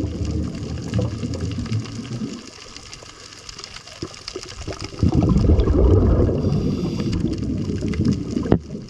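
Underwater bubbling rumble of scuba exhaust bubbles, loud at first, fading for a couple of seconds, then loud again about five seconds in, in step with a diver's breathing. A couple of sharp clicks near the end.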